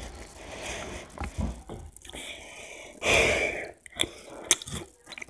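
A short, loud breath about three seconds in, then a few light clicks as a metal spoonful of cereal is taken into the mouth.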